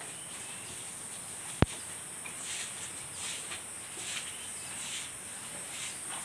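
Steady high-pitched insect chirring, with one sharp click about a second and a half in and faint scratchy rustles later on.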